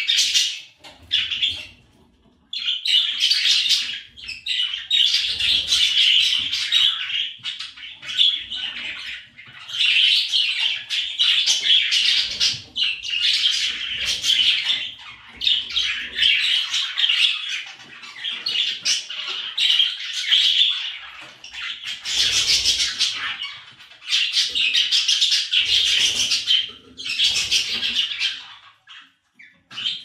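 Pet budgerigars chattering and warbling in a fast, nearly continuous stream of high chirps, with short pauses about two seconds in and near the end.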